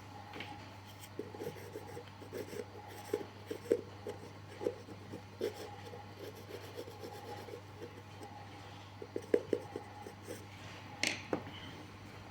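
Irregular scraping, rubbing and light tapping from hand work on a shoe sole, with a sharper click about eleven seconds in, over a steady low hum.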